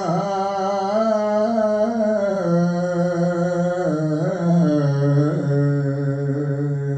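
A man's solo voice singing a Shia noha (Urdu elegy), holding the drawn-out end of a line as one long melismatic phrase that falls in pitch in steps, with a couple of quick wavers near the middle.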